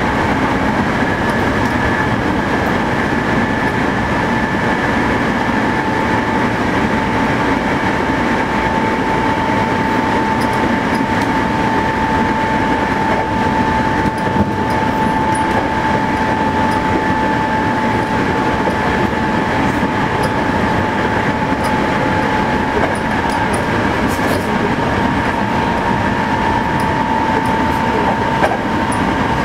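Hankyu 8000 series electric train running at speed: a steady rumble of wheels on rail with a steady whine from its Toshiba GTO inverter-drive traction motors, holding one pitch throughout.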